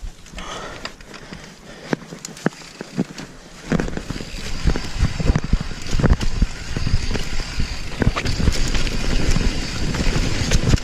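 Downhill mountain bike clattering over a rough trail at speed: a dense rattle of knocks and thuds over a steady hiss. It gets much louder about four seconds in.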